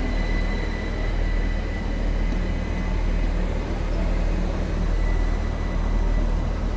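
Two coupled Class 387 Electrostar electric multiple units arriving at the platform: a steady low rumble with a thin, high, steady whine over it.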